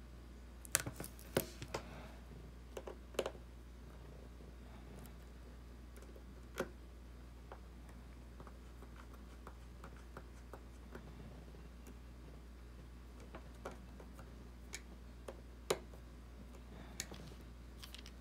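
Scattered small clicks and ticks of a precision screwdriver turning tiny screws into the metal bracket of an iPhone 6s display assembly. A quick cluster comes in the first few seconds, then sparser single clicks, over a low steady hum.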